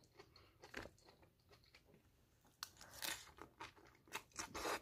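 Close-up eating sounds: soft chewing and wet mouth clicks, then chow mein noodles slurped in near the end.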